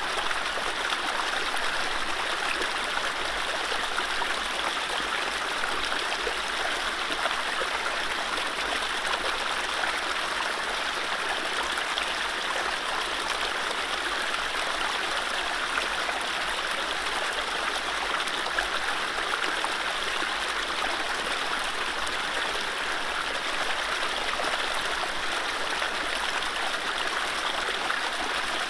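Mountain stream running over low rapids: a steady, even rush of water with no birdsong.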